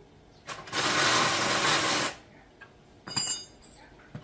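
Workshop tool work: a loud, even noise lasting about a second and a half, then a short, ringing metallic clink about three seconds in.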